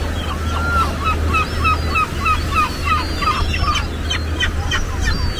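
Seagulls calling: a gull gives a rapid series of short, repeated cries, about three a second, followed near the end by a few sharper, shorter calls. There is a steady low rumble underneath.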